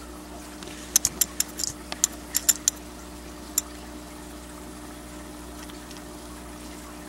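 Steady hum and water noise of an aquarium filter pump, with a quick run of about a dozen sharp clicks between one and three seconds in and one more a second later.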